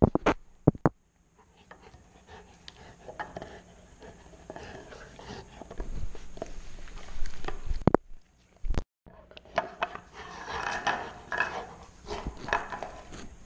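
Golden retriever gnawing a large chew bone on a tiled floor: wet chewing and scraping, with sharp knocks as the bone strikes the floor, loudest just after the start and about eight seconds in.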